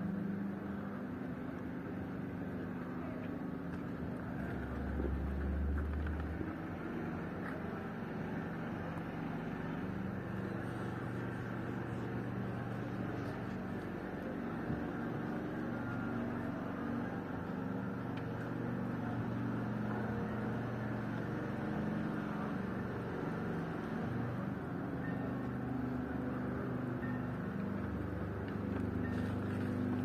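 Steady hum and rumble of motor vehicle engines running, with the engine note shifting now and then.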